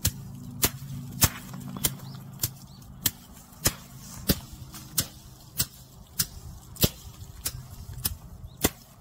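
Dried perilla plants threshed by hand: a long stick beating the heap in a steady rhythm, about fifteen sharp strikes a little under two a second. A low steady hum runs underneath.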